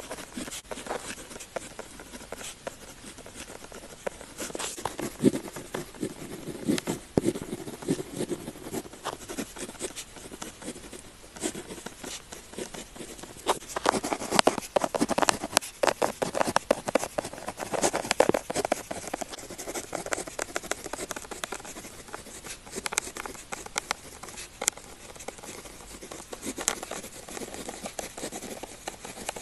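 Pen tip scratching on paper in quick writing strokes, a steady run of short scratches that grows busier and louder about halfway through.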